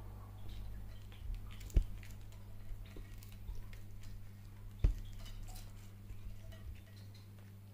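A cat crunching and chewing dried fish: scattered small crackles and clicks, with two sharp low thumps about two and five seconds in, over a steady low hum.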